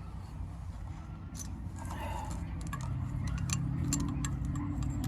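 Light metallic clicks and clinks of hand tools being handled on the truck's steering parts, a quick irregular run of sharp ticks starting about a second and a half in, over a low steady hum.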